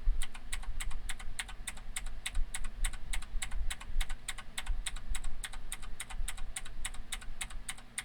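Typing on a Motospeed CK99 mechanical keyboard with blue optical switches: a fast, even run of clicky keystrokes, several a second.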